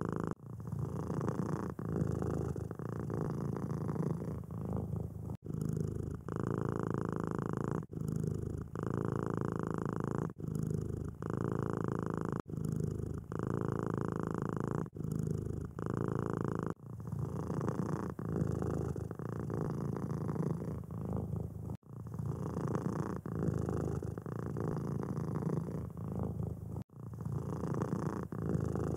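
Domestic cat purring close to the microphone, swelling and easing with each breath about every two seconds, with a few split-second gaps.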